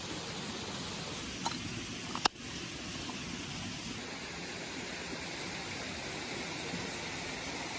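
Steady rush of a mountain stream, broken by two sharp clicks, one about a second and a half in and a louder one just over two seconds in.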